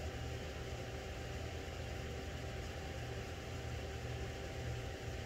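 Steady low electrical or mechanical hum with a faint steady whine over light hiss: the background room noise of a small indoor space.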